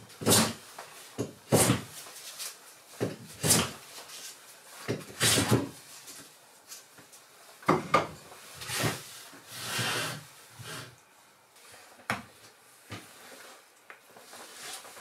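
Wood being handled by hand: an irregular series of knocks and short scraping rubs, each lasting up to about half a second, with quieter shuffling between them.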